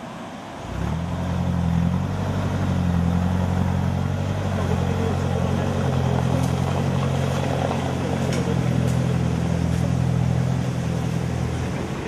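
Off-road 4x4 vehicle engine running steadily at a low, even speed. It comes in suddenly about a second in and drops away near the end.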